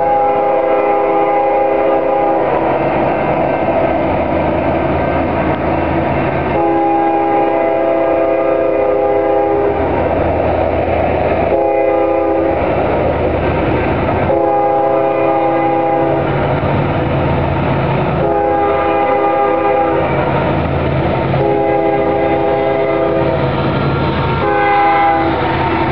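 Union Pacific freight's lead diesel locomotive sounding its multi-note air horn in a series of long blasts, the last one short near the end, for the road crossing. Beneath the horn run the steady rumble of the diesel engines and the wheels on the rails as the train comes up and passes.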